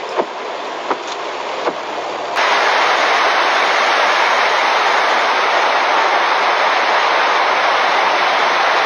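Heavy rain pouring down as a steady hiss, with a few faint taps early on; about two and a half seconds in it jumps to a louder, denser downpour that stays steady.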